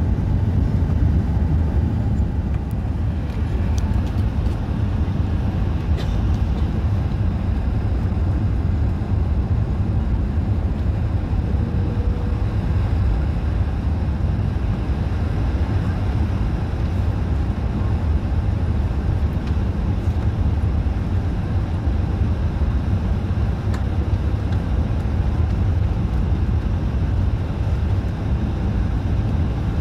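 Steady low rumble of an Airbus A380's Engine Alliance GP7200 engines and airflow, heard inside the cabin on final approach with the flaps extended.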